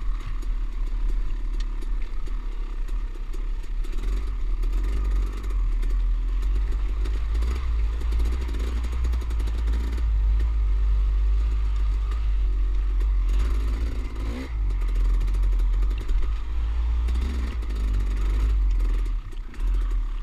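Dirt bike engine running at low revs on slow technical trail, its pitch rising and falling again and again with short blips of throttle, over a deep steady rumble. Scattered clatter from the bike going over loose rock.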